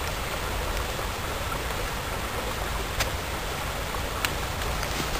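Steady, even outdoor hiss like rushing water, with two short sharp clicks about three and four seconds in.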